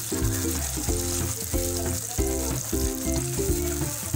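Mustard and coriander-leaf paste gravy sizzling in a hot pan as it is stirred with a spatula, under background music with an evenly repeating pattern of chords.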